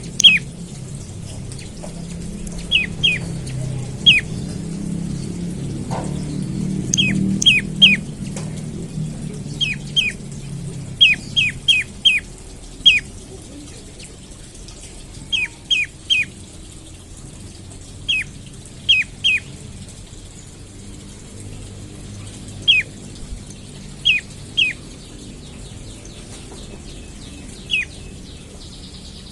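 Prenjak lumut calling: short, sharp downslurred notes, singly or in quick runs of two to four, repeated every second or two.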